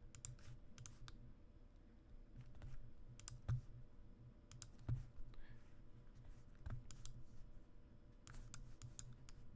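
Irregular clicking from a computer mouse and keyboard, about a dozen quiet clicks spread unevenly, over a steady low electrical hum.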